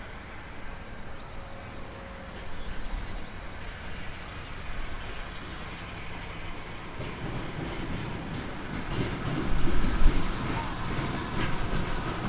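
Steam locomotive and its train approaching slowly: a low rumble that grows louder about halfway through and swells most about three-quarters of the way in, with faint clicks of wheels on the rails.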